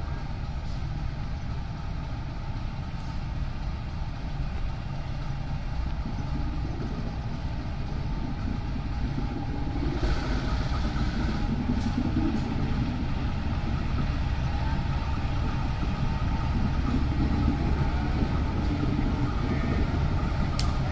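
Diesel engine of a CC 201 diesel-electric locomotive running as the locomotive rolls slowly along the track, growing a little louder about halfway through, with a few sharp clicks.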